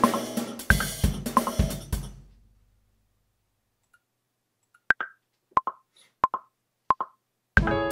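A piano-and-drum beat played back in Logic Pro stops about two seconds in and dies away. After a pause, the software metronome gives a one-bar count-in at 90 BPM: four clicks about two-thirds of a second apart, the first higher than the other three. The beat starts again near the end.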